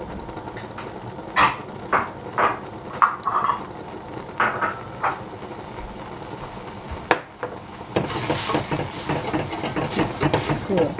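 Wire whisk stirring thick hot chocolate in a stainless steel saucepan, its wires tapping and scraping the pan now and then. About eight seconds in the whisking turns fast and continuous, with a steady run of clinks and scraping.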